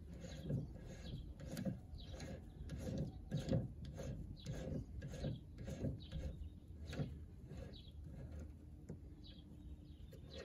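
New track rod end being wound by hand onto the greased thread of a Ford Fiesta Mk7's inner track rod: a run of short rubbing, rasping strokes, two or three a second, that thin out near the end.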